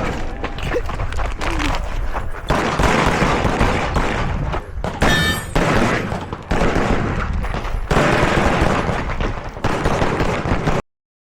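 Rapid pistol gunfire, many shots in quick succession that crowd together, stopping abruptly near the end.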